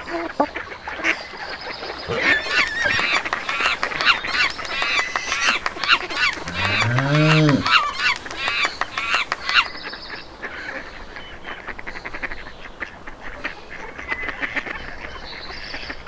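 A flock of animals calling: a rapid run of short, arching high-pitched calls, densest in the first half. About seven seconds in comes one lower drawn-out call that rises and falls. The calls thin out after about ten seconds.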